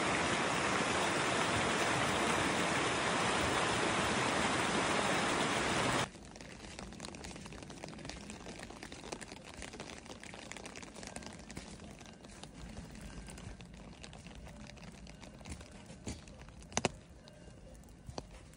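A mountain stream rushing over rocks, a loud steady rush that cuts off suddenly about six seconds in. Then a quieter patter of rain in a conifer forest with light footsteps on a dirt path, and a couple of sharp taps near the end.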